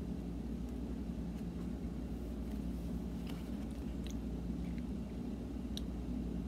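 A child chewing a Zotz fizzy candy, with a few faint clicks, over a steady low hum.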